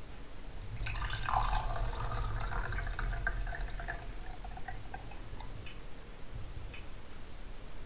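Pink RV plumbing antifreeze poured from a glass measuring jug into a small glass measuring cup, splashing and filling from about a second in. After about four seconds it goes quieter, with only a few drips.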